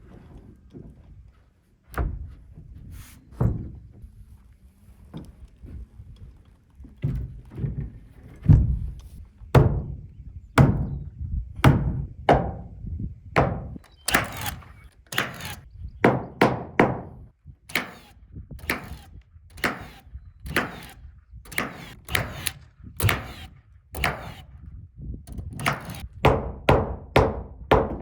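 A hammer striking wood subfloor sheathing again and again, with blows about a second apart at first that come faster, about two a second, through the second half.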